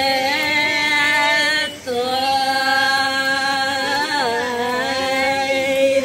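A voice singing in long, drawn-out held notes, chant-like, with a short break about two seconds in and a wavering turn of the melody around four seconds in.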